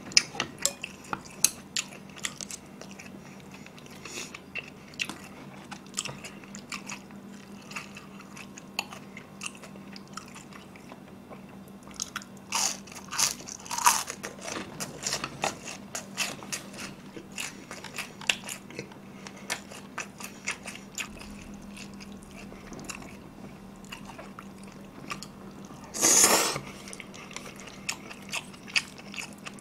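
Close-miked chewing and crunching of crispy glutinous-rice sweet-and-sour pork: a steady run of small crisp crunches, with louder eating bursts about halfway through and again near the end. A faint steady hum runs underneath.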